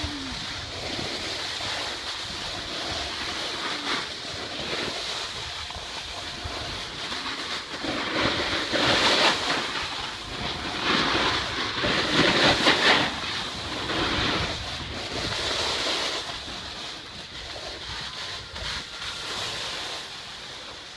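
Snowboard sliding and scraping over packed snow, a steady hiss with wind rushing over the microphone, growing louder in two swells about halfway through.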